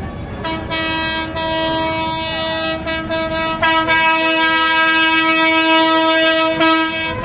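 A loud air horn of the train-horn kind, blown in one long steady blast of about seven seconds, with a second note joining about halfway through.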